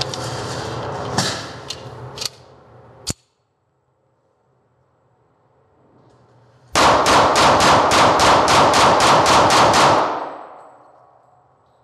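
Auto-Ordnance Thompson 1911 .45 ACP pistol fired in rapid succession, about a dozen shots at roughly four a second, emptying its 12-round magazine. Before that, a few sharp clicks over a steady hiss.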